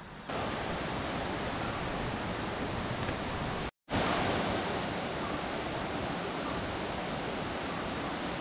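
Steady rushing of a nearby waterfall, broken by a brief gap a little under four seconds in.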